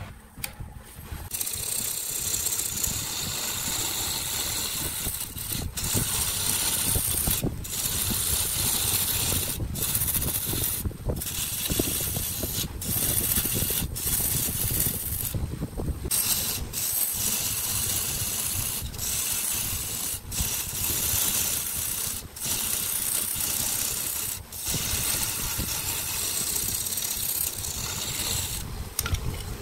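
Wood lathe spinning a glued-up wooden blank while a turning tool shaves it: a steady hiss of wood being cut over the lathe's low rumble, broken by brief breaks every second or two. The hiss is weaker for the first second or so.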